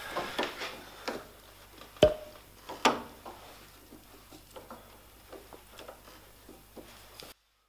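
Small metallic clicks and taps of a long hex driver working the blade clamping-bar screws in an Elektra Beckum HC300 jointer's cutterhead. There is a sharper click about two seconds in, another about a second later, then lighter ticks as the screws are turned. A faint low hum runs underneath.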